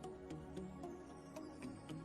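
Background music: soft held chords and a melody over a light, even ticking beat.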